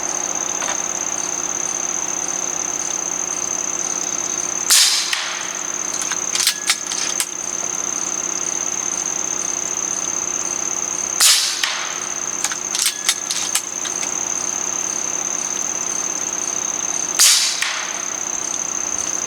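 Three shots from a regulated PCP air rifle, a JTS Airacuda Max in .30 calibre, each a sharp crack about six seconds apart. After each of the first two shots comes a quick series of metallic clicks as the action is cycled to chamber the next pellet; none follows the third and last shot.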